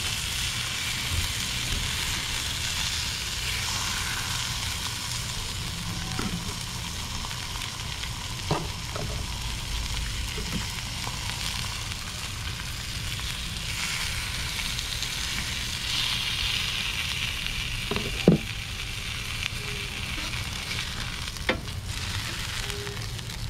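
Thick steak and steak fries sizzling on a hot Blackstone griddle, a steady high hiss throughout. A few sharp clicks come from the metal spatula and knife against the steak and the griddle top, the loudest about three-quarters of the way through.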